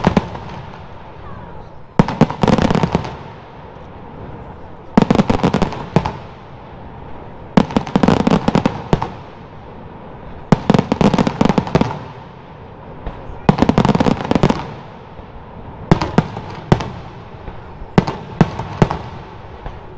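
Aerial firework shells bursting in salvos: each cluster is a rapid run of sharp bangs, coming about every two to three seconds and then about once a second near the end.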